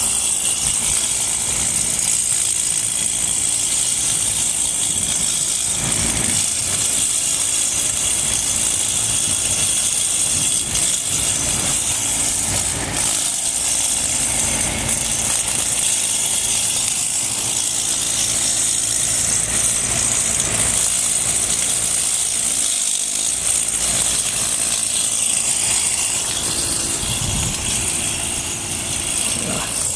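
Plug-in electric motor of a homemade K'nex lawn mower running steadily with a high whine, its spinning blade cutting through grass. The sound eases off slightly near the end.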